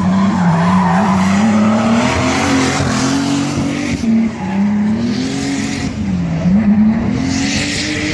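A drift car's engine revving up and down as the car slides, with its tyres squealing over it.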